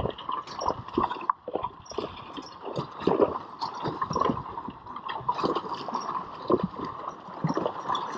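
A horse's hooves splashing as it wades through a shallow river pulling a wagon, in irregular strokes several times a second, over the steady rush of the flowing water.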